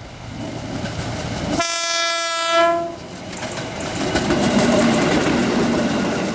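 KRL Commuter Line electric train sounding one horn blast, about a second long, starting about one and a half seconds in. The blast is signal 35 (semboyan 35), given by the driver as a greeting to the trainspotter. The train's running noise and wheel clatter go on throughout and grow louder as it passes.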